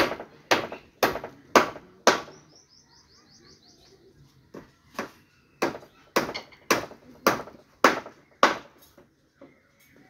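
Sharp blows of a hand tool striking wooden planks, in two steady runs of about two blows a second, with a pause of about two seconds between them.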